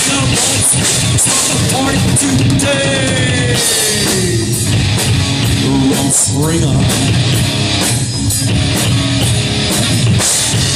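Live rock band playing: two electric guitars over a drum kit, with a long falling note about three seconds in.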